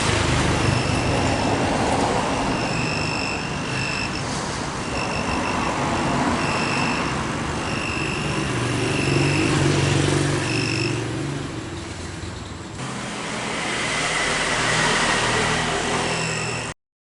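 Non-contact voltage tester's buzzer beeping in short, irregular bursts of a high tone, which signals that it is sensing live voltage. Steady noise of passing road traffic runs underneath. The sound cuts off suddenly near the end.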